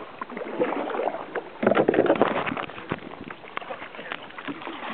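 Water splashing and slapping around a plastic sit-on-top kayak, with many sharp knocks against the hull. A voice calls out briefly about a second and a half in.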